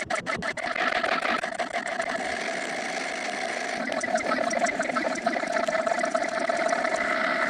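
A steady machine-like whirring sound effect, with a quick run of clicks at the start and a faster rattle joining about four seconds in.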